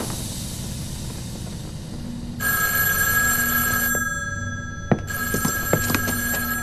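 Push-button desk telephone ringing in two rings, the second stopping as the receiver is lifted. A short knock falls between the rings, and a low steady hum runs underneath.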